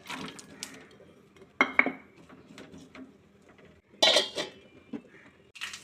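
Metal kitchen utensils clattering against pots and pans in four short bursts of clinking and scraping, the loudest about a second and a half in and about four seconds in.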